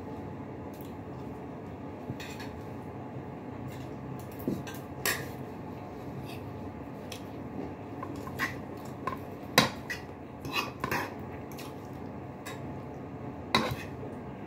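Eating by hand at a table: scattered light clicks and taps of fingers and food against ceramic plates, with chewing, over a steady low room hum. The loudest taps come about halfway through and near the end.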